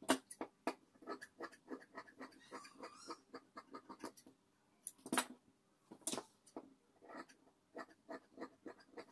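Large metal dressmaking shears snipping through fabric in a run of short, irregular cuts, about two or three a second, with a few louder clicks of the blades near the start and twice a little past the middle.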